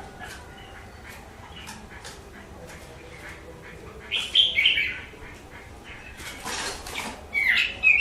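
Chinese hwamei calling: a loud burst of calls sliding down in pitch about four seconds in and another near the end, with sharp ticks and taps throughout and a short rustle, like wing flapping, shortly before the last call.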